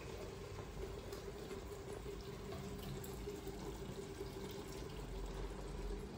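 Mutton sizzling as it fries in ghee in an open aluminium pressure cooker over a low gas flame, with a steady hiss and a few faint crackles. The cooking water has almost boiled off, so the meat is now frying in the fat.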